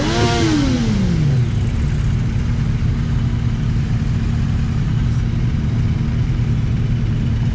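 Motorcycle engine revved once in a quick throttle blip, its pitch shooting up and then falling away over about a second and a half, then idling steadily among other idling motorcycles.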